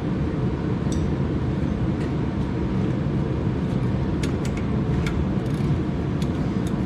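Steady low rumbling noise with a few light clicks, one about a second in and several between four and five seconds in.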